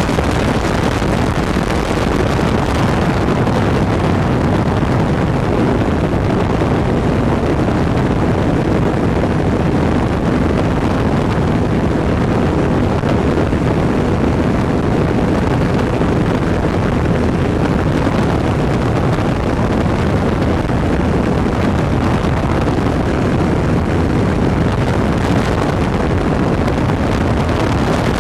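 Microlight aircraft in flight: its engine running steadily under heavy wind rush on the microphone.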